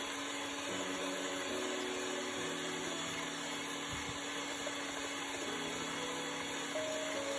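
Electric hand mixer running steadily, its beaters whisking beaten eggs in a bowl.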